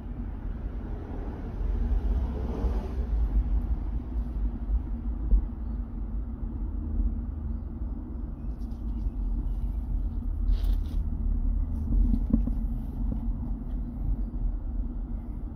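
Outdoor ambience dominated by a steady low rumble of wind on the microphone. A vehicle passes on the road, swelling and fading about two to three seconds in, and there is a brief rustle near the middle.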